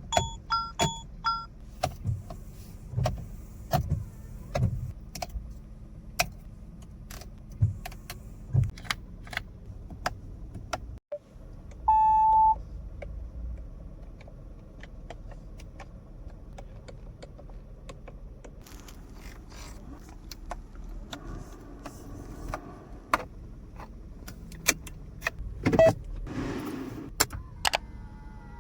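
Mahindra XUV 3XO cabin controls being operated: a long run of sharp clicks from switches and latches. One short loud chime beep comes about twelve seconds in, and a heavier thunk near the end.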